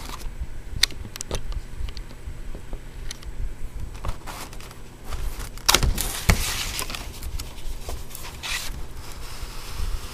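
Packaging being handled as a die-cast model is worked out of its box: rustling, scraping and crinkling with scattered clicks and taps, loudest about six seconds in.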